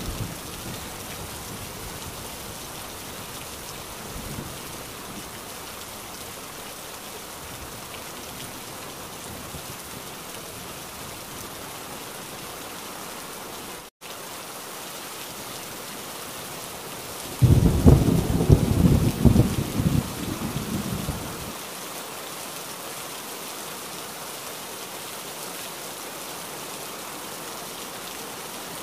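Heavy rain falling steadily, with one loud clap of thunder that rumbles for about four seconds in the second half. The sound cuts out for an instant about halfway through.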